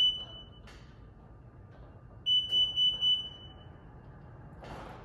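Power frunk control module's buzzer beeping a single high note: a quick run of about five short beeps a couple of seconds in, the beeps counting off the closing-speed setting while its programming button is held down.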